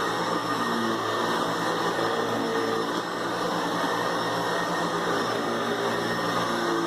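Hoover Convertible Elite upright vacuum cleaner running steadily: a motor hum under a rushing hiss of airflow.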